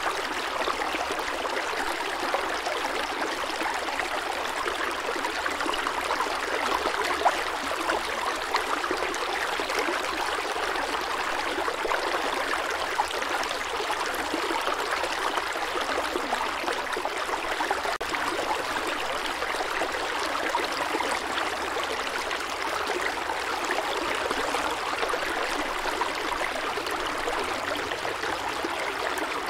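Steady rushing water: an even, unbroken water noise with no swells of surf and only a few faint ticks.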